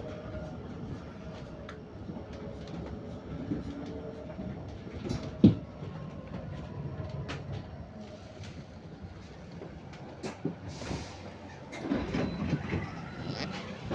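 Bus running, heard from inside: a steady rumble with rattles and a faint steady whine, and one loud knock about five and a half seconds in.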